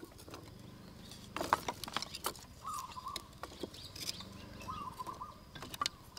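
Dry sticks and split bamboo knocking, clicking and rustling against each other and the rim of a clay charcoal stove as they are fed into a small wood fire. There is a cluster of sharper clicks a little over a second in.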